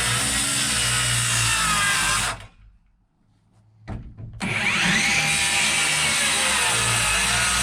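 Electric power saw cutting wood. It stops a little over two seconds in, then restarts with a rising whine as the motor spins up, and cuts on steadily.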